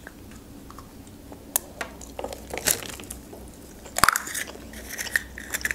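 Close-up biting and chewing of a milk-chocolate surprise-egg shell, with scattered crisp clicks. About four seconds in comes one sharp snap as the yellow plastic toy capsule from inside the egg is pulled open.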